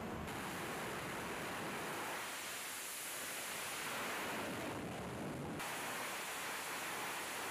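Steady rushing roar of jet engines on an aircraft carrier's flight deck. Its tone shifts abruptly twice, about a third of a second in and again about five and a half seconds in.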